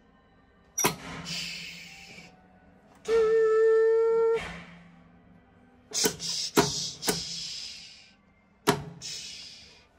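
Train conductor's cab controls being worked: a switch clicks and a hiss of air follows. About three seconds in, a buzzer sounds one steady tone for over a second. Then several more quick switch clicks, two of them followed by fading hisses of air.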